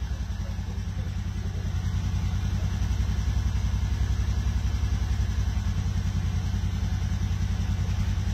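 Kawasaki Teryx4 side-by-side's 783 cc V-twin engine idling, an even low pulsing.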